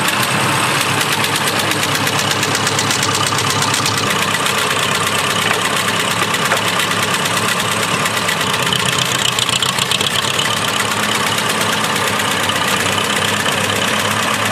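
1957 Ferguson FE-35 tractor engine running steadily at low revs through its vertical exhaust stack while the tractor is driven slowly.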